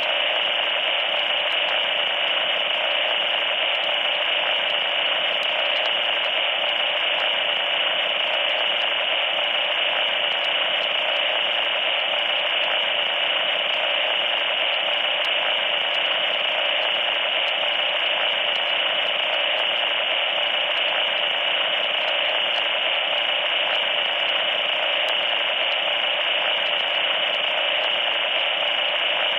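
Loud, steady electronic static: a harsh hiss with a thin high whine running through it, unchanging in level and pitch.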